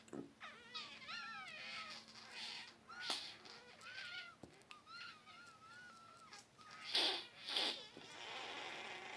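Warbling, chirping mouth noises that sound like a cat's meows and trills, sliding up and down in pitch, followed by two loud breathy bursts near the end.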